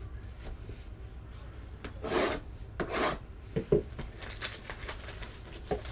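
Trading card packs and cards being handled: two short rasping rubs about two and three seconds in, then a few light taps.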